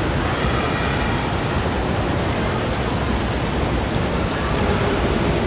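Steady noisy din of bumper cars running across the rink floor, with no distinct collisions.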